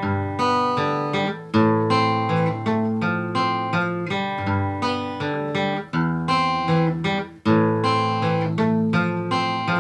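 Acoustic guitar music: a run of plucked notes and strummed chords.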